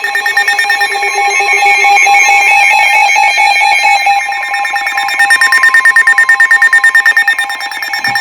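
Emergency Alert System attention signal: a loud, steady two-tone alarm sounding before a severe thunderstorm warning is read. From about five seconds in, a rapid fluttering pulse runs over it, and the tone stops near the end.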